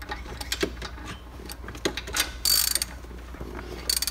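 Ratchet wrench clicking as a socket on an extension turns a bolt at the base of a 2003 Corvette Z06's six-speed shifter. Scattered single clicks lead up to a fast run of ratcheting about two and a half seconds in, and a shorter run comes near the end.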